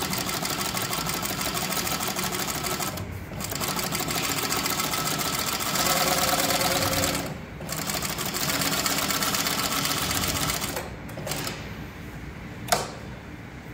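CowBoy CB6900 cylinder-bed triple-feed industrial sewing machine, driven by a quiet servo positioner motor, stitching through leather with a fast, even stitch rhythm. It sews in three long runs with brief stops between them. Near the end it sews only a few short bursts, and there is one sharp click.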